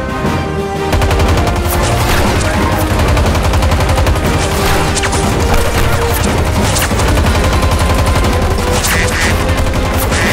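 Rapid automatic gunfire, an unbroken stream of shots starting about a second in, over background music.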